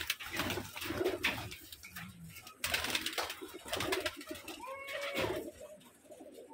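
Giribaj pigeons cooing, with short flurries of wing beats.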